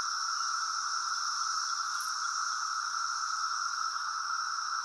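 Chorus of many cicadas singing: a steady, unbroken drone with a higher hiss above it.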